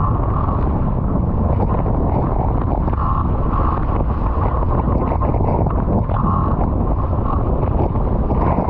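Heavy, steady wind buffeting on the microphone over water rushing and spraying off the hull of an International 14 skiff planing at speed in strong wind.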